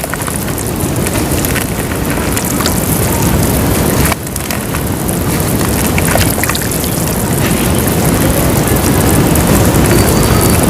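Lumps of white dirt crumbling and dissolving in water, close-miked: a dense, steady hiss flecked with many small crackles, broken briefly about four seconds in.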